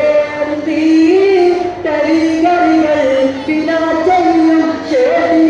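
Voices singing a devotional melody together, with held notes that step up and down in pitch and a second line an octave above the first.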